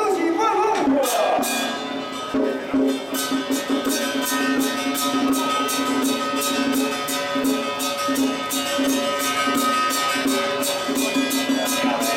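Taoist temple ritual music: a held, steady tone under rapid percussion strikes at about five a second.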